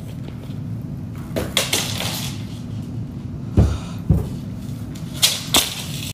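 Thuds and sharper knocks of feet in platform Crocs hitting a wooden floor, about six in three pairs, the two heaviest near the middle, over a steady low hum.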